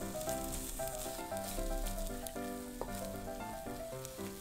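Rolled egg omelette sizzling in a hot non-stick pan, a steady frying hiss, over light instrumental background music.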